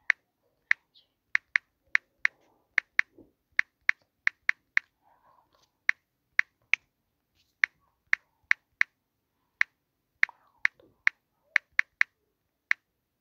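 Key-press clicks of a smartphone's on-screen keyboard as a message is typed: a run of short, identical clicks at an uneven typing pace, two to three a second with brief pauses, stopping shortly before the end.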